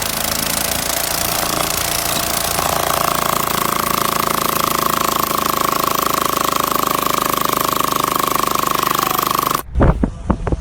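Loud machinery running with a fast, jackhammer-like rattle, joined about two and a half seconds in by a high steady whine. It cuts off abruptly near the end, and a few dull thumps follow.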